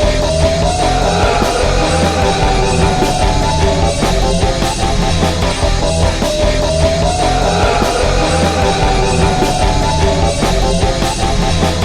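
Loud rock music with a steady beat and a melody line that rises and falls, the phrase repeating about every six seconds.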